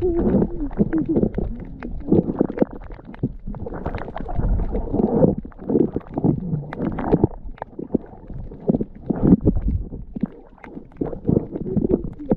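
Muffled underwater rumbling and sloshing of water around a submerged camera, with irregular knocks and swells.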